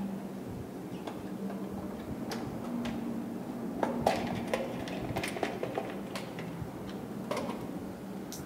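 Scattered light clicks and taps of hands working wires and plastic breaker modules in an MCB distribution board, the sharpest about four seconds in, over a low steady hum.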